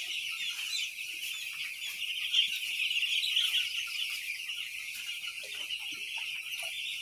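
A flock of hundreds of five-day-old broiler chicks peeping together in one dense, continuous, high-pitched chorus.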